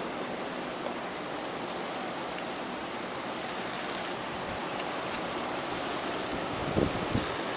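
Heavy rain pouring down in a steady, even hiss, driven by strong wind. Two brief low bumps stand out near the end.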